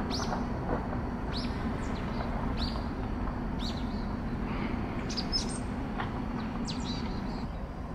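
Small birds calling in short, high chirps, one about every second, over a steady low hum.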